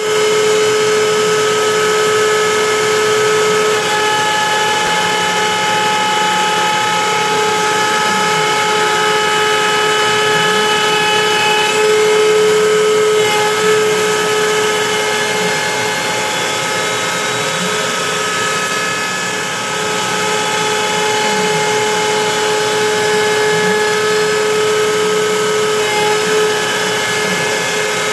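Compact trim router on a CNC machine running at a steady high whine as its bit mills pockets into a wooden serving platter, the cutting noise of the bit in the wood mixed in. A few short low glides in pitch rise and fall under it.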